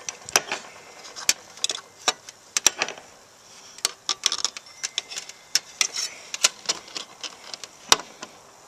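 Irregular sharp metallic clicks and light taps of small hardware and stove parts being handled while a stubborn nut is worked at, one that does not come off; the owner puts the stiffness of these nuts down to burrs and threads he tapped himself.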